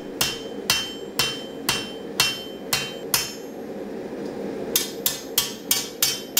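Hand hammer striking a hot steel sword blade on an anvil during forging. About seven blows come at roughly two a second, several with a short ring, then a pause and a quicker run of six blows. A steady low hum runs underneath.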